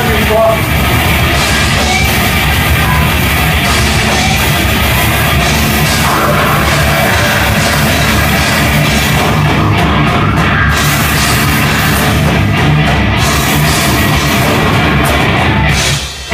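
Loud heavy rock music from a band, with drums and a dense, distorted sound, dipping briefly near the end.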